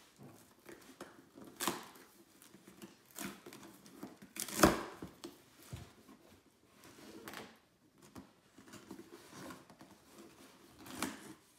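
Packing tape on a cardboard shipping box being slit and torn open with a small hand tool: irregular scraping and ripping strokes, the sharpest about halfway through.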